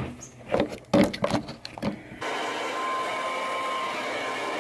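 A few knocks and rustles, then about two seconds in a handheld hair dryer starts up and runs steadily, blowing air with a faint whine from its motor.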